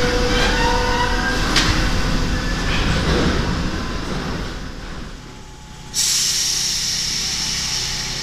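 RATP MF77 metro train running along a station platform: a rumble of wheels on rail with steady electric whines and a sharp click, fading out after about five seconds. About six seconds in, the sound cuts suddenly to a louder, steady high whine and hiss from a train in motion.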